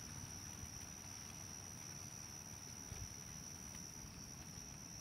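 Faint, steady high-pitched insect chorus, with one small tick about three seconds in.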